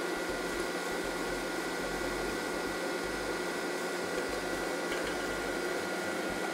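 Electric mixer running steadily with a faint high whine, whipping egg whites and sugar into meringue.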